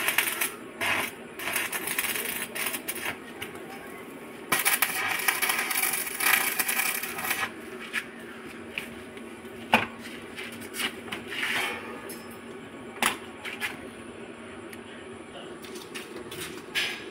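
Electric arc welding on a metal cage frame: the arc crackles and sizzles in short spells at first, then in one longer run of about three seconds. After that come a few scattered sharp clicks over a steady hum.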